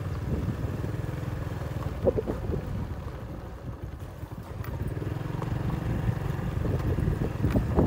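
Motorbike engine running at low speed, easing off briefly around the middle and then picking up again, with a few short knocks from the rough dirt track.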